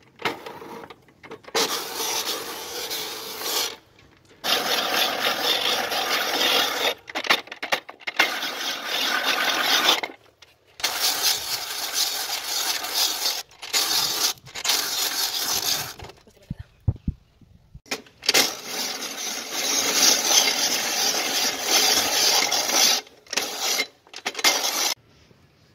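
Hand-cranked cast-iron ice shaving machine grating a block of ice against its turning blade, shaving it into snow-like ice. The scraping comes in stretches of a few seconds with short breaks between them.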